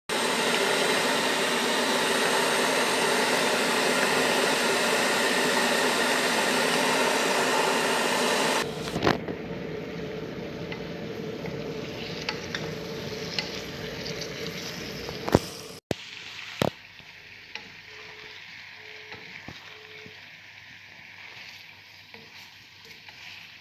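Turmeric-coated shrimp frying in hot oil with onions, garlic and chili. A loud sizzle for about the first eight and a half seconds drops abruptly to a quieter sizzle, with scattered clicks from stirring.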